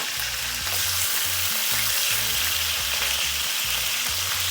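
Lobster pieces frying in hot oil in a pot: a steady sizzle.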